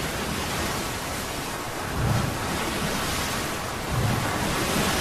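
Heavy seas: a steady roar of waves and wind, with low surges swelling up about every two seconds.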